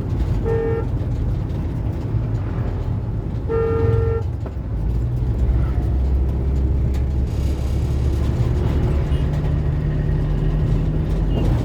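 A vehicle horn honking twice, a short toot and then a longer one about three seconds later, over the steady low rumble of engines and road traffic.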